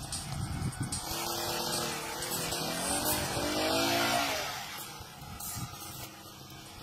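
Two-stroke brush cutter engine revving, its pitch rising and falling; loudest from about a second in to the middle, then easing off.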